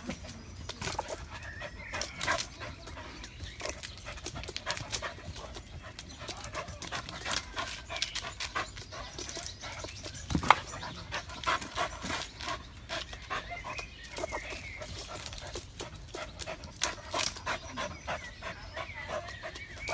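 A dog panting and whining in excitement as it jumps at a tree after a squirrel. Many short sharp knocks and thumps run through it, the loudest about ten seconds in.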